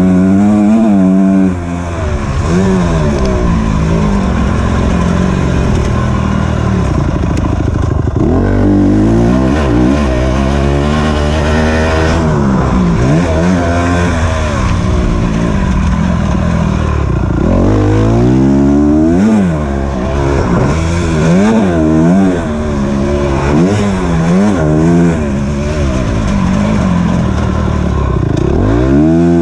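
Motocross bike engine heard from on board, revving hard and dropping back over and over as the rider accelerates, shifts and slows around a dirt track; the pitch climbs and falls in repeated sweeps.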